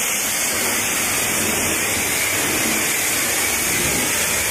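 High-pressure water spray from a self-serve car wash wand hitting a car's body panels and wheel, a steady hiss of water.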